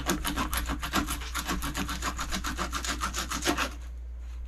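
A dive knife sawing back and forth to cut the head off a king kole on a plastic cutting board: a quick run of short cutting strokes, several a second, that stops about three and a half seconds in.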